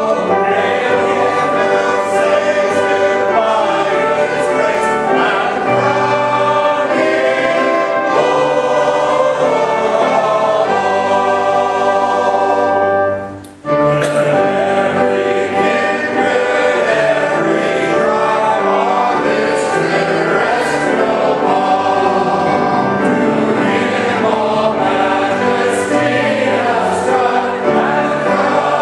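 Men's chorus singing a hymn together, with a short break in the singing about halfway through.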